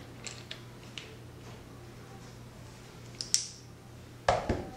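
Plastic spring clamp being handled: a few light clicks from its jaws and swivel pads, a sharp click about three seconds in, then two heavier knocks near the end as the clamp comes down onto the tabletop. A low steady hum lies underneath.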